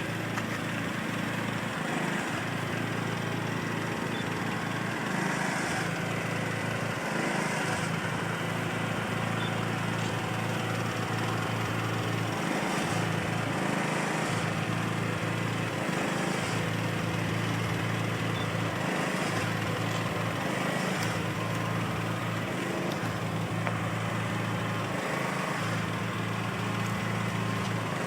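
Engine of a heavy-haul truck running steadily at low revs: a low, even hum.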